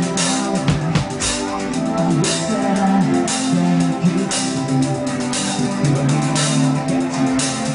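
Rock band playing live: drum kit keeping a steady beat under a moving electric bass line and electric guitars.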